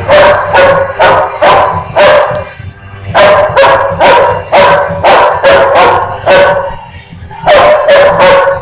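Large black dog barking loudly and repeatedly at a small dog during rough play, about two sharp barks a second, with a brief pause near the end.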